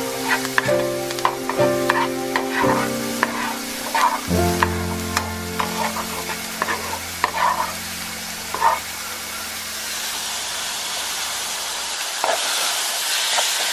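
Diced green bell pepper frying in a nonstick pan, with a spoon tapping and scraping as it is stirred, over background music. The music drops out after about nine seconds, leaving a steady frying sizzle that grows stronger about twelve seconds in, with sliced sirloin steak cooking in the pan.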